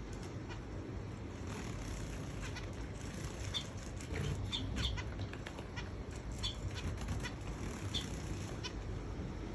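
Small finches at a shallow water dish: several short, high chirping calls scattered through, with wing flutters and light splashes of water.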